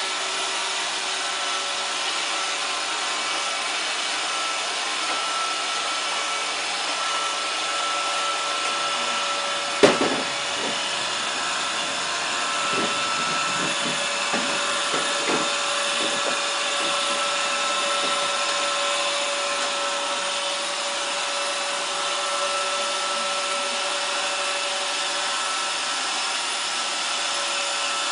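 Roomba robot vacuum running across a pool table's felt: a steady whirring with a thin high motor whine. About ten seconds in there is one sharp knock, followed over the next few seconds by several lighter knocks.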